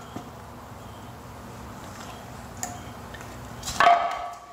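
A new pool-pump shaft seal seat being pressed down into a Pentair WhisperFlo's plastic seal plate: a few light clicks, then a louder, ringing plastic clack near the end.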